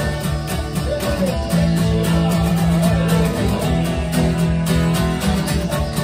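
Acoustic guitar strummed through an instrumental passage of a song, with a wavering melody line over the chords for a couple of seconds.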